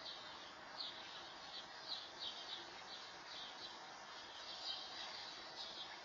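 Faint bird chirps, short high calls repeating irregularly about once or twice a second, over a steady background hiss.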